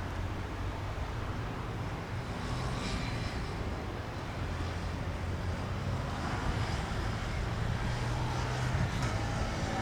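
Piper PA-28-161 Warrior III's four-cylinder Lycoming engine and propeller droning steadily, a little louder in the second half.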